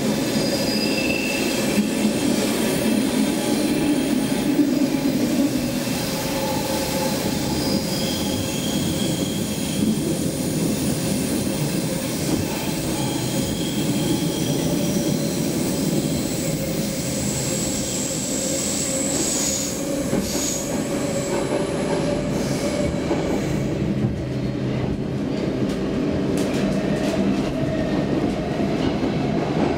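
Stockholm Metro C6 train running through a tunnel, heard from inside the car: a steady rumble of wheels on rail, with thin high wheel squeals coming and going. The high hiss drops away about two-thirds of the way through.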